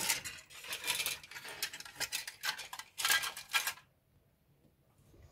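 Grey plastic model-kit sprues clattering and rustling as they are lifted and set aside, a run of quick light clicks that stops a little under four seconds in.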